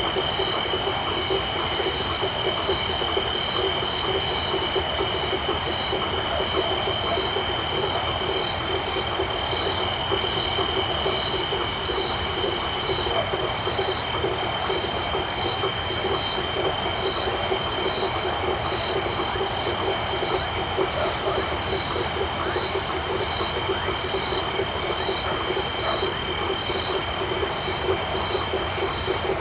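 Night chorus of insects and frogs: a steady high insect drone, regular pulsing chirps repeating about every two-thirds of a second, and a dense low chorus of frogs calling underneath.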